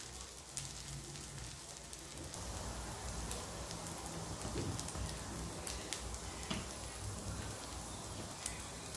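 Food frying in hot oil in a pan: a steady sizzle, a little louder after about two seconds, with a few sharp pops of spattering oil.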